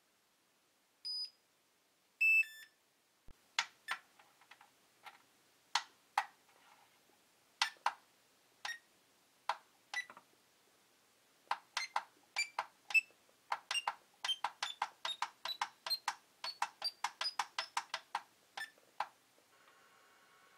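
SkyRC MC3000 battery charger's beeper: a short high beep, then a quick run of falling beeps, followed by keypad button presses, each a click with a short key beep, coming faster later on, their pitch stepping up over a run of presses. Near the end the charger's cooling fan starts with a steady hum.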